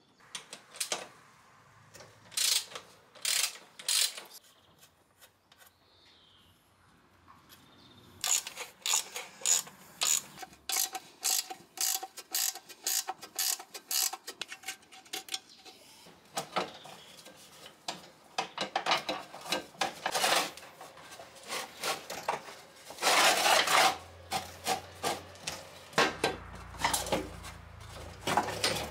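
Ratchet wrench clicking as it works a nut on a rusty motorcycle front fork, with a long run of quick clicks through the middle. Around it, irregular metal clanks, rattles and scraping of parts being handled, loudest in a short burst near the end.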